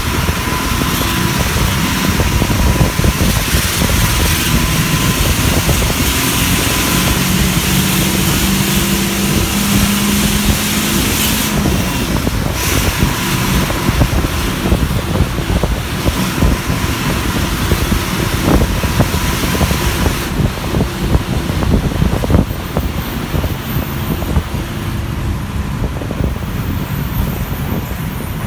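City bus under way, heard from inside the cabin: the engine running with steady road rumble, its note rising for a few seconds about a third of the way in, then the whole noise easing a little near the end.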